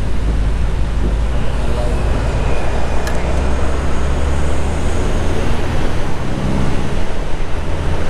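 Wind rushing over the microphone on the roof of a moving bus, over the steady low drone of the bus's engine and tyres on the road.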